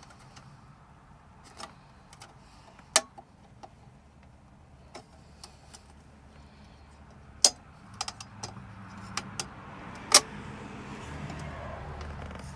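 Sharp metallic clicks and clinks, a few seconds apart, as a metal radio mounting basket is worked into place over a car radio.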